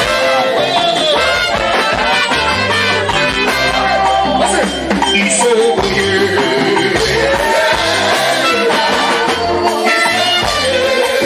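Live gospel band music at full volume, with a bass line shifting under melodic instrument lines.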